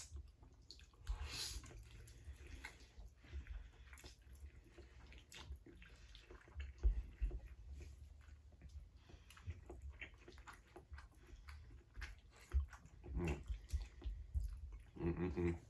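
People chewing and biting food, with scattered small clicks and low knocks throughout and a couple of short voiced sounds near the end.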